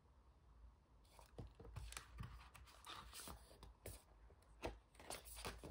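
A pack of rub-on transfer sheets being handled: soft, irregular rustling and crinkling of the packaging and sheets, starting about a second in.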